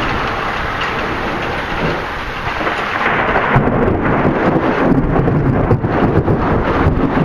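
Thunderstorm: a steady rush of wind noise under a deep rumble of thunder that swells about three seconds in, with rough crackling on top.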